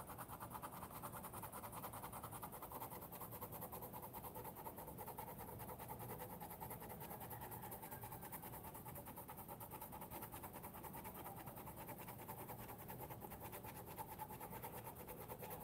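Navneet Youva colored pencil shading on thick sketchbook paper: faint, quick, even back-and-forth scratching strokes.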